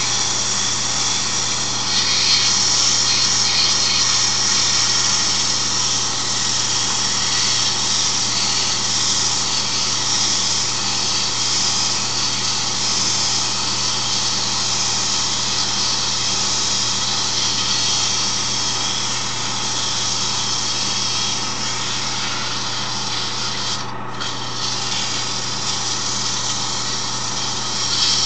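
Wood lathe running steadily under a motor hum while 150-grit sandpaper is held against the spinning wooden handle, a wavering hiss of abrasive rubbing on wood that smooths out the deep grain. The hiss eases off for a moment near the end.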